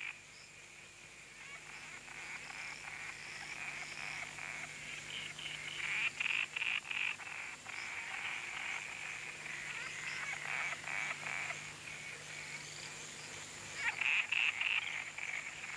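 A chorus of frogs calling: a steady high trill under spells of rapid, clicking calls that get louder about six seconds in and again near the end.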